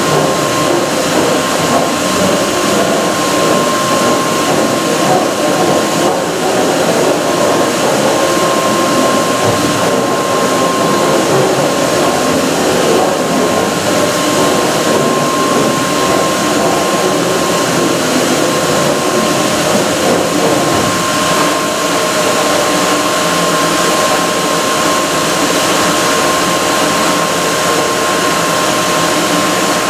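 Northwood 138EDS three-axis CNC stone machining center running, its head travelling along the gantry bridge: a loud, steady machine rush with a constant high whine.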